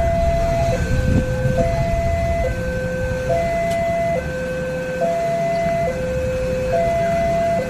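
Indonesian railway level-crossing warning alarm sounding a steady two-tone high-low pattern, each tone lasting just under a second, which warns that a train is coming. Idling road traffic, cars and motorbikes, runs underneath.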